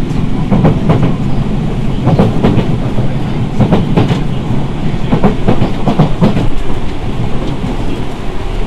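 Enshu Railway 1000 series electric train running, heard from inside the car at the gangway: a continuous low rumble with irregular clacks of the wheels over rail joints.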